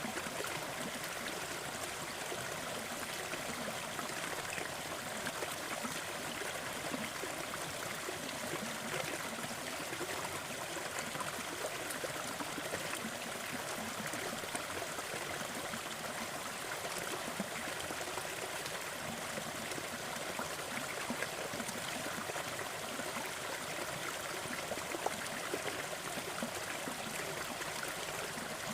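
Small waterfall running steadily, an even rush of falling water with fine splashing and trickling.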